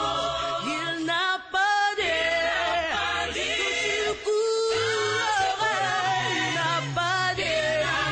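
Background music: a choir singing a Christian song, with low bass notes underneath.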